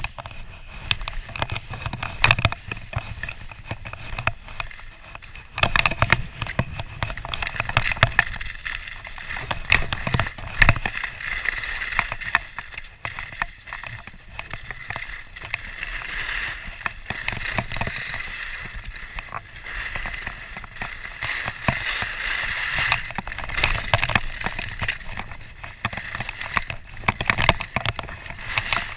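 Skis sliding and scraping over snow on a bumpy run, an uneven hiss that swells and fades, with frequent short knocks as the skis ride over the bumps.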